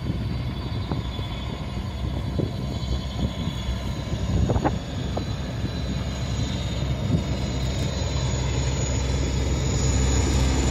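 Sikorsky S-64 Skycrane twin-turbine heavy-lift helicopter approaching, its rotor and engine sound a steady low hum that grows gradually louder as it comes closer overhead.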